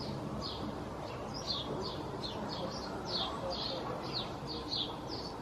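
Small birds chirping, short falling chirps about three a second, over a steady low background noise.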